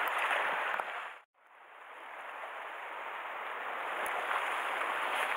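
Sea water washing and splashing against a rocky shore, a steady hiss of surf. It cuts out to silence about a second in and fades back up over the next couple of seconds.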